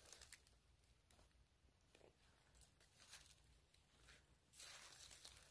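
Near silence: faint footsteps rustling through dry leaf litter, a little louder near the end.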